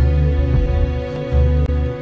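Music: steady held tones over deep bass notes that swell and change about every half second.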